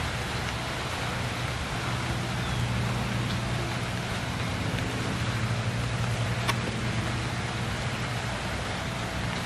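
Steady rain falling through the trees and onto the yard, with a low steady hum underneath and a single sharp click about six and a half seconds in.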